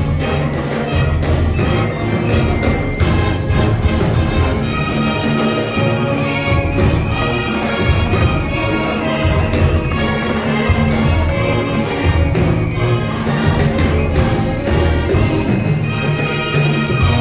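A band playing a song with a steady beat.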